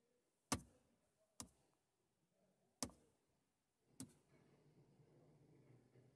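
Four sharp clicks as a finger taps the buttons of the Dacia MediaNav dashboard touchscreen, then a faint low hum after the last tap.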